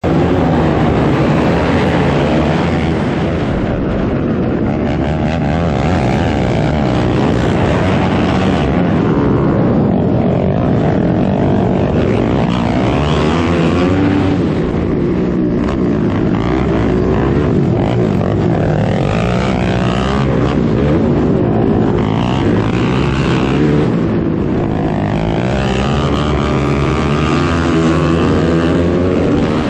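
Racing ATV engine revving hard at race pace, heard from on board. The pitch keeps rising and falling with throttle and gear changes.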